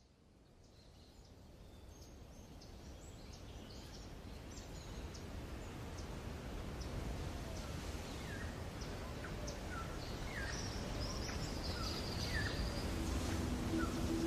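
Small birds chirping over a steady outdoor background noise, the whole fading in gradually.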